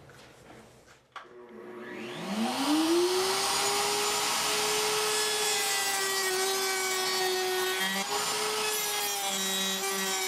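Table-mounted router switching on about a second in, its whine climbing in pitch as the motor spins up, then running steadily at high speed while a pine block is fed past the roundover bit.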